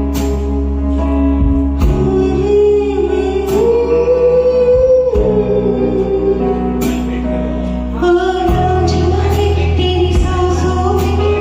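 Music: a woman singing a slow Hindi song with long held, gently bending notes over an instrumental accompaniment with bass and a regular beat.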